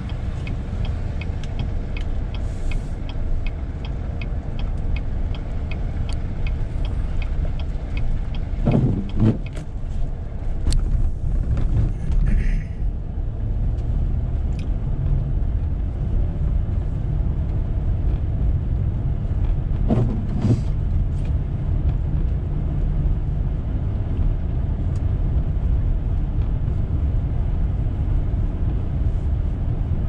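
Steady low rumble of a four-wheel-drive vehicle's engine and tyres on a slushy, snow-covered road, heard from inside the cabin. A quick, regular ticking about twice a second runs through the first dozen seconds, and two brief louder sounds come about nine and twenty seconds in.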